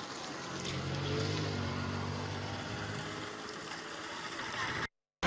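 An engine running steadily with a low hum, its pitch easing slightly, cutting off abruptly near the end.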